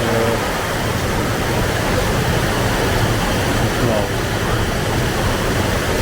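Waterfall rushing steadily into a pool, with faint voices of people in the water.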